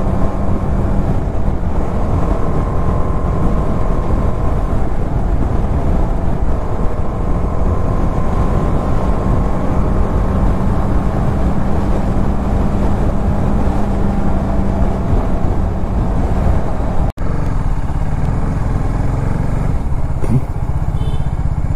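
TVS Apache RR 310's single-cylinder engine running steadily on the move, under a dense low rush of riding noise. The sound drops out for an instant about 17 seconds in.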